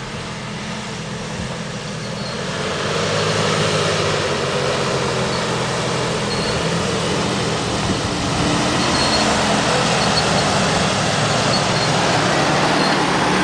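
Jeep engine running steadily while driving off-road, with a broad rushing noise over the engine hum. It gets louder about two to three seconds in.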